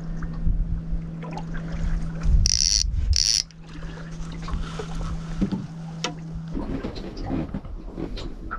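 Two short, loud, high-pitched electronic beeps a little over two seconds in, over a steady low hum that cuts off about six and a half seconds in.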